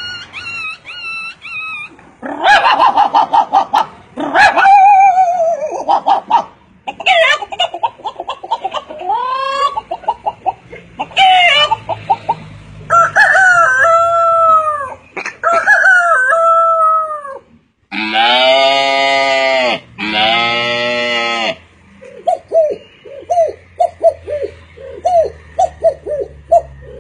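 A man imitating animal and bird calls with his voice: a string of varied warbling and gliding calls, two long loud calls about two-thirds of the way through, then a quick run of short repeated calls near the end.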